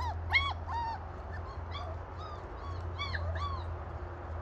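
German Shepherd puppy whimpering and yelping: a string of short, high-pitched cries, each rising and then falling, bunched in the first second and again around three seconds in.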